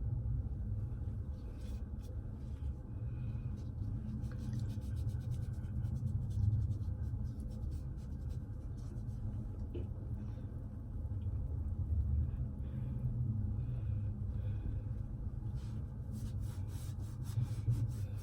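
A folded paper towel wet with rubbing alcohol being scrubbed over the skin of the face in irregular scratchy strokes, over a steady low rumble.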